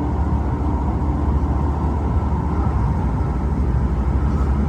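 Steady low rumble heard from inside a Metro A Line light-rail car.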